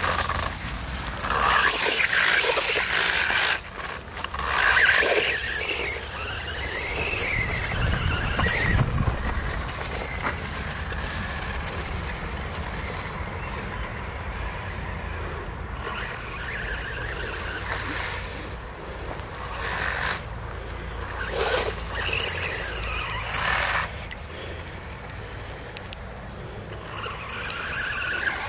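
Small electric RC car driving over leaf litter, its drivetrain giving a harsh grinding squeal in repeated spells, loudest in the first few seconds, again about two-thirds of the way in, and near the end. The driver puts the noise down to the rear gearbox under load, with gearing too tall for the car to pull, and thinks it may be damaged.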